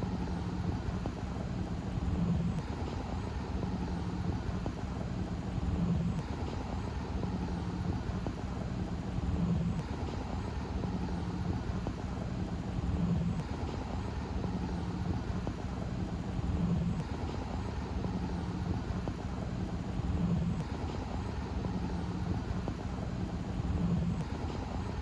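Steady outdoor background rumble with a low hum that swells at regular intervals, about every three and a half seconds.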